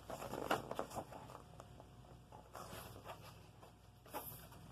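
Faint paper rustling and a few light clicks as a picture book's pages are handled and turned.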